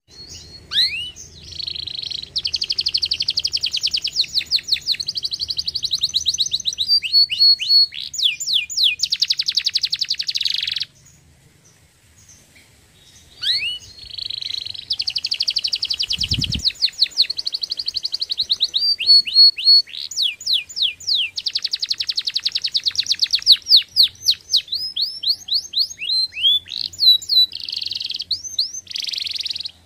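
Domestic canary singing two long song phrases built of rapid trills and rolling repeated notes with quick upward whistles, separated by a pause of about two seconds.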